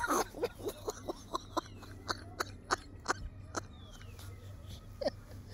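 A man laughing hard, near-silent and breathy: a quick run of short gasping bursts that slow and fade over about three and a half seconds, with one more just before the end.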